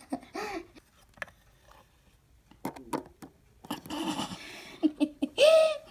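Human stomach growling and gurgling, a quiet sound that sounded weird, with a few sharp clicks about three seconds in.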